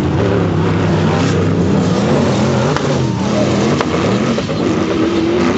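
Sand rail dune buggy engines revving hard at full throttle as two buggies drag race side by side on sand, their pitch rising and falling as they accelerate away.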